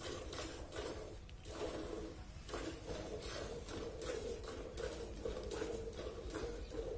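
Cow being milked by hand into a steel bucket: milk squirting from the teats into the pail in a steady rhythm, about two to three squirts a second.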